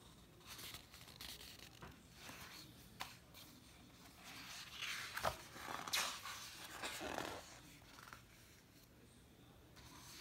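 Pages of a large printed booklet being turned by hand: paper rustling and swishing, with a few sharp flicks. The loudest page flips come about halfway through.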